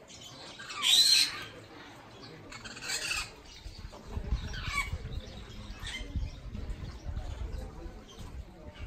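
Parrots in aviaries squawking: a loud arching call about a second in, then several shorter harsh calls, with a low rumble on the microphone from about halfway.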